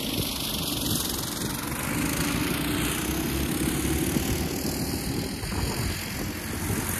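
Two gas minibikes, a Massimo MB200S and a Coleman BT200X, racing at full throttle, their small single-cylinder engines running hard in a steady buzz.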